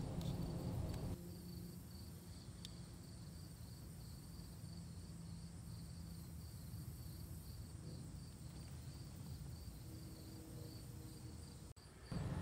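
Crickets chirping faintly in a steady, even rhythm of short high-pitched pulses, about three a second, over a low hum.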